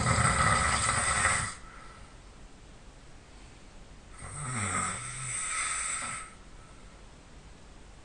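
A man snoring in his sleep: a loud rattling snore lasting about a second and a half, then, a few seconds later, a softer snore carrying a low tone that dips in pitch.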